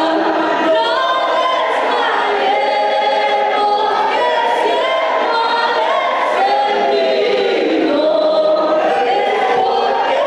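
A group of voices singing together, men and women, with sustained sung notes and no clear instrumental beat.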